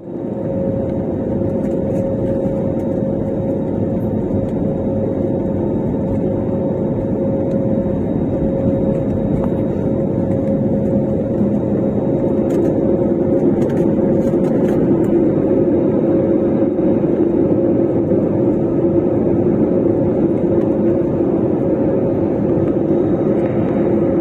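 Airliner engines running at a steady pitch: an even noise with two held tones, growing a little louder about halfway through.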